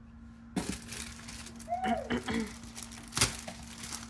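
Packaging crinkling and rustling as a package is handled and opened. It starts about half a second in, with a sharp crackle a little after three seconds.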